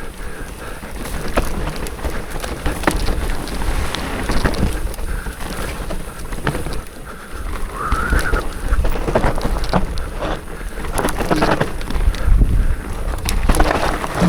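Mountain bike rattling and clattering over a rough forest trail, with many small knocks and clicks, while wind buffets the microphone in a steady low rumble.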